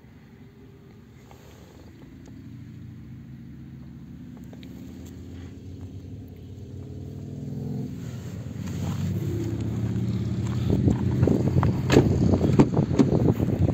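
Renault Modus 1.2 petrol engine idling steadily, faint at first and growing louder throughout. Irregular rough crackles come over it for the last few seconds.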